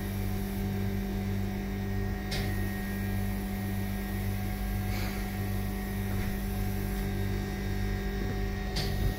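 CTS climate test chamber's machinery humming steadily, with a low hum that pulses about twice a second. A few faint clicks come through on top.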